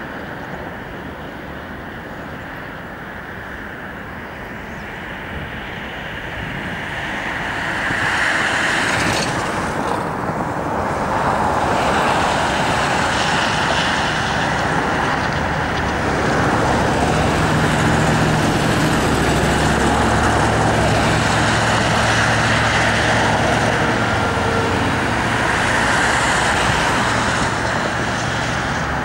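Steady road traffic noise, swelling about eight seconds in and staying up, with a low engine hum in the second half.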